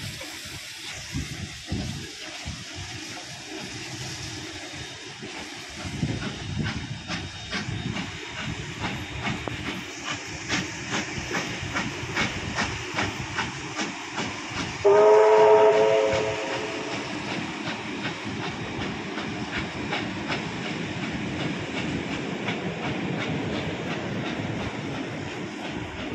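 Double-headed steam locomotives, R766 and 5917, working a train past at speed with a steady beat of exhaust and hiss of steam. About halfway through, one loud steam whistle blast lasts a little over a second. The carriages then roll by with the clickety-clack of wheels over the rails.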